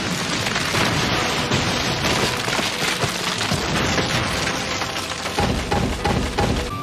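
Anime sound effect of a Wood Release (Mokuton) technique, the Wood Wall: a dense, steady rush of wood bursting up and cracking, starting suddenly, with a deeper rumble swelling about five seconds in.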